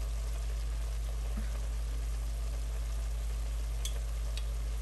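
Chicken stew steadily sizzling and simmering in a stainless steel pot on a gas stove, over a low hum, with two faint ticks near the end.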